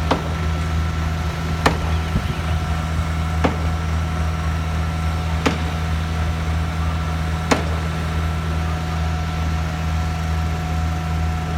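Concrete boom placer machine running with a steady engine hum and a sharp knock about every two seconds, five knocks in all, stopping about three-quarters of the way through.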